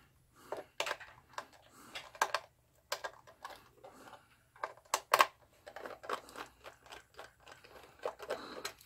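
Small screwdriver turning screws out of the back of a plastic analog multimeter case, with irregular small clicks and scrapes as the driver and case are handled.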